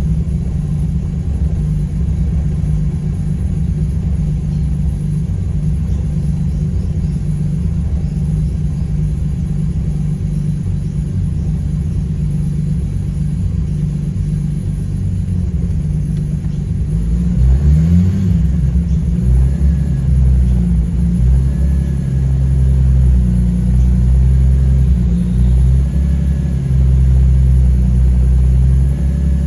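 Holden VL Turbo's turbocharged RB30 straight-six, on E85, idling steadily while warming up. Just over halfway through, the revs rise and fall once, and the engine then runs louder and less steadily.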